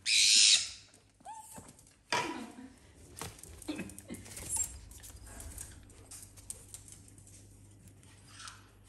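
A white-bellied caique and a small white dog at close quarters: a harsh, noisy squawk right at the start (the loudest sound), then a few shorter calls that slide in pitch and light sniffing, scrabbling and pattering on the floor.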